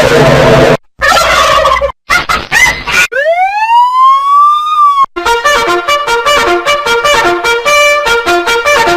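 A run of short sound-effect clips cut one after another: two brief snippets, then a single pitched tone that glides up and levels off for about two seconds, then a quick tune of short repeated notes.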